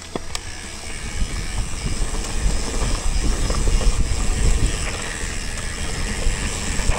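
Mountain bike rolling over a dirt trail: a continuous low rumble of tyres and frame rattle, growing louder about two seconds in, with a few sharp clicks at the very start.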